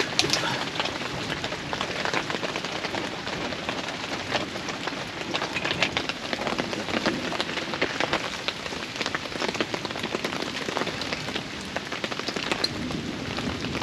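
Steady rain pattering on a surface, a dense hiss thick with sharp individual drop hits.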